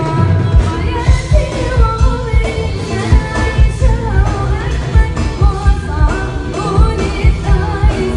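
A female singer performing an Arabic song, her melody sliding and ornamented, over a band with a steady, heavy drum beat.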